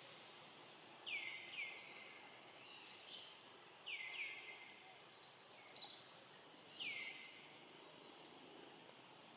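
Bird calls over a faint, steady high hiss: a downward-sliding call repeated about five times, twice in quick pairs, with short, higher chirps between. A sharp chirp a little after the middle is the loudest sound.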